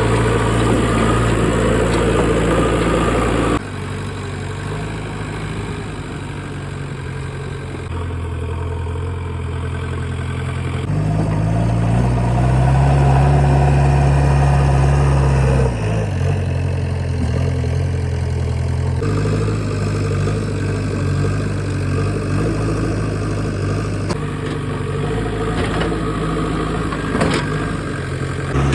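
JCB backhoe loader's diesel engine running, in several spliced clips: the engine note and loudness change suddenly every few seconds.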